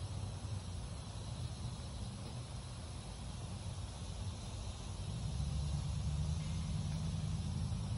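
Outdoor ambience: a steady low rumble that swells about five seconds in, over a faint high hiss.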